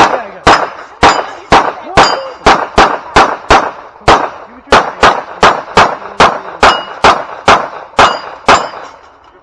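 Rapid string of about two dozen 9mm pistol shots from a Glock 17, three to four a second with a short pause near the middle, some followed by the ring of steel plates being hit on a plate rack.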